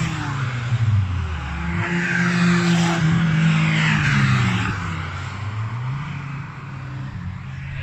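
Classic cars' engines accelerating away along a race track, their notes rising and falling in pitch. The sound fades toward the end.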